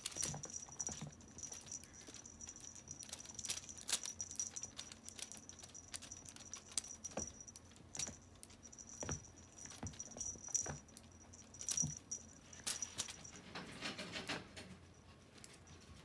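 Small bell on a kitten's collar jingling as the kitten dashes and pounces, with scattered light taps of paws on the rug. The jingling stops about three-quarters of the way through and is followed by a brief scuffle.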